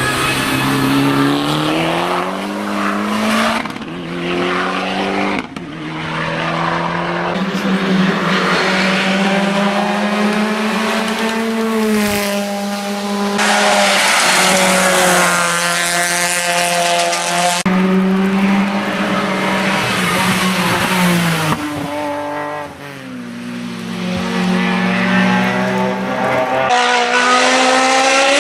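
Hill-climb race cars driven flat out, engines revving high and dropping with each gear change, with tyre squeal. Several cars are heard one after another, and the sound changes abruptly several times.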